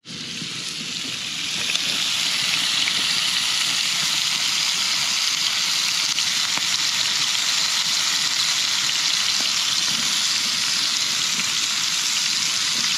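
Bacon-wrapped dove poppers frying on a hot pan, a steady sizzle that swells over the first couple of seconds and then holds.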